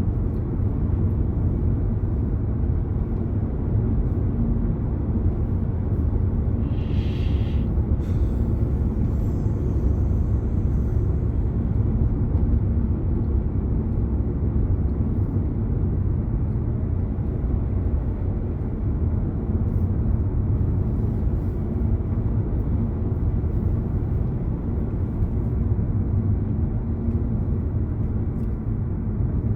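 Car being driven on the road: a steady low rumble of road and engine noise, with a brief higher hiss about seven seconds in.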